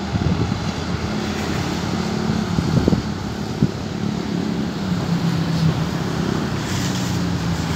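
A steady low engine drone with a wavering hum under it, buffeted by wind on the microphone, with a few low thumps.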